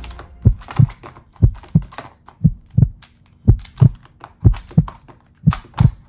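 Heartbeat sound effect: a low double thump, lub-dub, about once a second, six beats in all. Faint clicks of a plastic speed cube being turned are heard between the beats.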